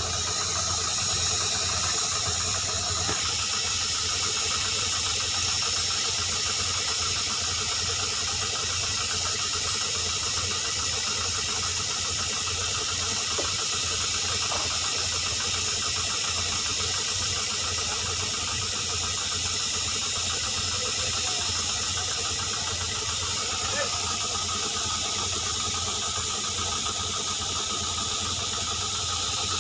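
Tractor-driven air compressor running steadily: a constant engine drone under an even hiss of air.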